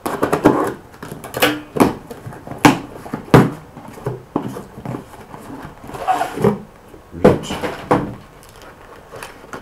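Cardboard packaging and its contents being handled as the next candle is dug out of a box: a string of irregular knocks and thuds with rustling between them, the loudest knocks about two and a half and three and a half seconds in.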